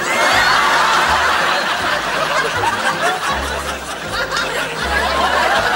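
Audience laughing, many voices at once, breaking out suddenly and going on, easing a little partway through before swelling again.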